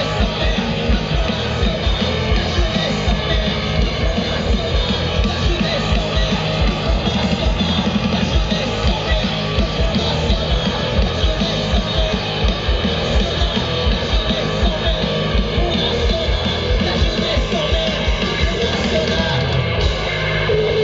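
Rock band playing live and loud, a punk-rock song with a driving drum beat, guitars and bass, and yelled singing over it.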